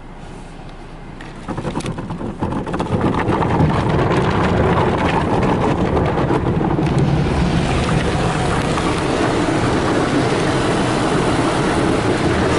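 Belanger FreeStyler soft-touch car wash spraying water and foam onto a car, heard from inside the cabin. It is fairly quiet at first; about a second and a half in, a clatter of spray on the glass starts and within a couple of seconds builds to a steady, loud wash.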